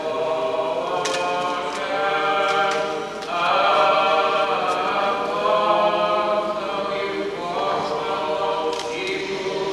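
Church choir singing a cappella, several voices holding long notes together.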